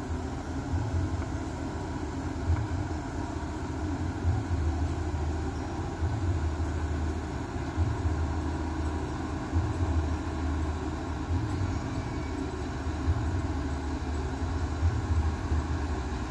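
A 28-ton truck crane's diesel engine running steadily during a lift, a low rumble that swells and eases unevenly.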